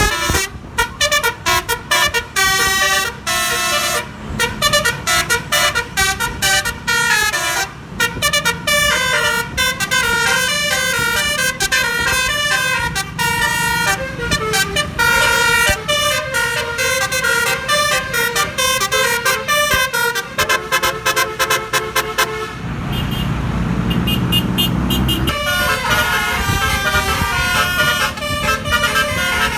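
Multi-trumpet 'basuri' musical air horn driven by a DAV air horn tune module, playing a fast melody of quickly changing notes. About two-thirds through, the tune breaks for a few seconds of rushing noise, then starts again.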